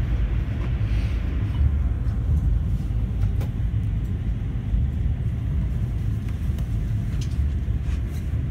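Steady low rumble of a moving passenger train heard from inside the rail car, with a few faint, scattered clicks.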